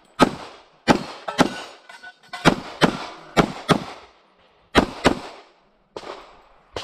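Infinity 2011 pistol in .40 S&W firing a string of rapid shots, mostly in pairs about a third of a second apart, each sharp crack trailing a short echo. The firing pauses briefly about six seconds in, and one more shot comes right at the end.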